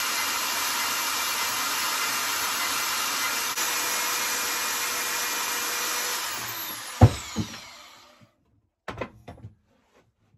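Electric motor-driven machine running steadily with a whine, then switched off about six and a half seconds in and winding down. A sharp metallic clank comes just before it stops, with a few lighter knocks a couple of seconds later.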